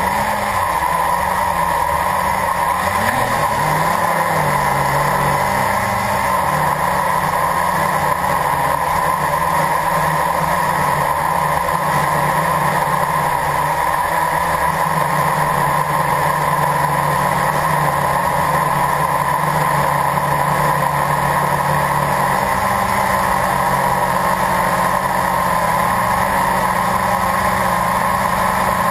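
Blade 350 QX quadcopter's electric motors and propellers running in flight, a steady drone heard from the camera mounted on the craft. Its pitch wavers in the first few seconds and then holds.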